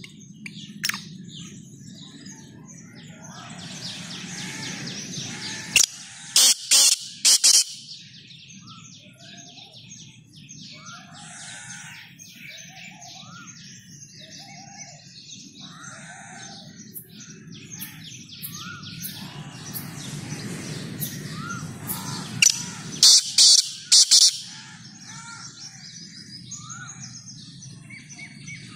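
Black francolin calling twice, each call a quick run of three or four loud, harsh notes, the second about sixteen seconds after the first. Softer chirps of other birds and a low steady rumble run underneath.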